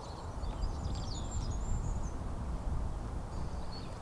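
Outdoor countryside ambience: small birds chirping in short high calls and trills over a steady low rumble.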